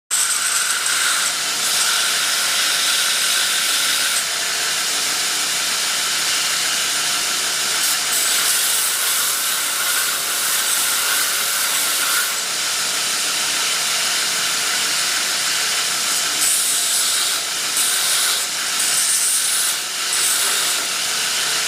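Small cast flask clips being ground on a shop-made powered abrasive machine: a steady rasping grind over the motor's hum, the pitch shifting briefly a few times in the second half as the part is pressed and moved.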